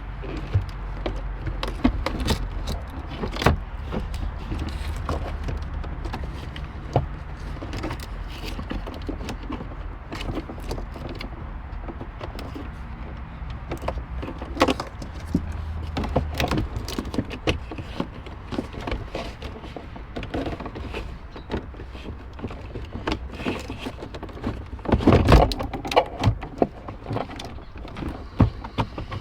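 Irregular clicks, taps and light rattles of hand tools and plastic dash parts being handled as an instrument cluster is worked loose from a car's dashboard, over a low steady hum. The clatter is busiest about 25 seconds in.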